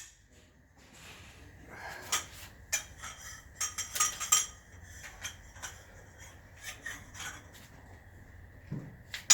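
Metal tools and bolts clinking and scraping on a Nissan RB25DET engine as a bolt is worked loose during a teardown. Scattered sharp clinks come in a busy run from about two seconds to four and a half seconds in, with a louder clink near the end.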